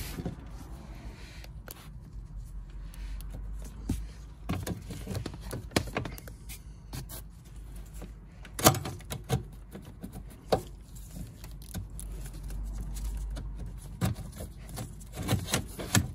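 Shift cables being pushed and worked through their metal bracket and the engine-bay surroundings by gloved hands: scattered clicks, knocks and rubbing, with a sharp knock about nine seconds in.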